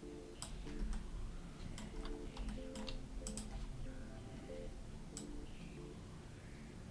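Computer keyboard keys and mouse buttons clicking in irregular bursts, most of them in the first half, over quiet background music.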